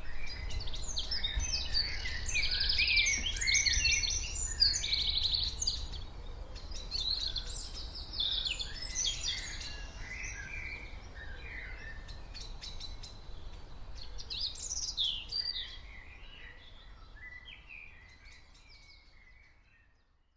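A chorus of small birds chirping and singing, many overlapping calls and rapid trills, over a low rumble. It thins out and fades away over the last few seconds.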